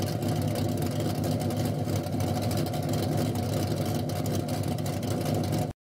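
Car engine running steadily with a deep exhaust rumble, cutting off abruptly near the end.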